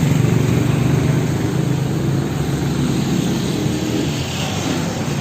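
A steady mechanical drone, a low hum over a broad rushing noise, holding at an even level throughout.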